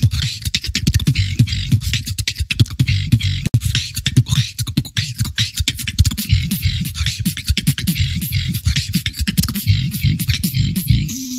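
Human beatboxing: a fast, dense run of clicks and snare-like hits over a continuous low bass, played without a pause.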